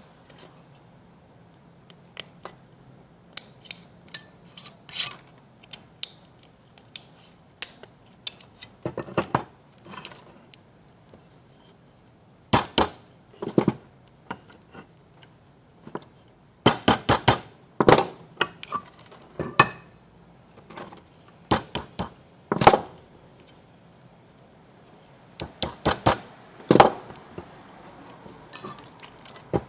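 Irregular sharp metallic clicks and clinks, some in quick clusters, as a small saw-blade knife and lamination puller pry at the steel core laminations of a small transformer to free the first sheet.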